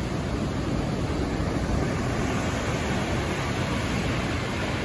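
Ocean surf breaking and washing up the shore: a steady rush of noise.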